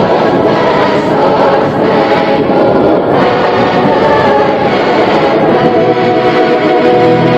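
Loud choral music: a choir singing held chords over instrumental backing.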